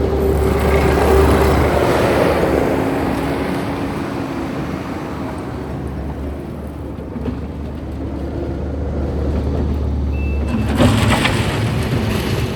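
Kubota SVL95-2s compact track loader's diesel engine running steadily while the machine is operated. It swells under load in the first couple of seconds and again near the end.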